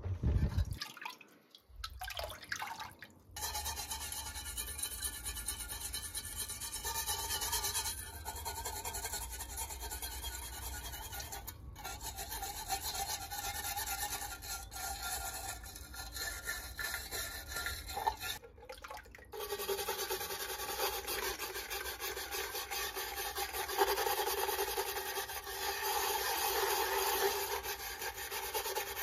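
A stiff brush scrubbing a rusty metal oil-lantern part, a steady rasping rub broken by two short pauses. It opens with a brief slosh as a gloved hand reaches into the soaking bath.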